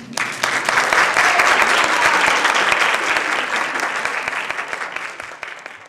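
Audience clapping, starting suddenly, strongest over the first few seconds, then gradually thinning and dying away.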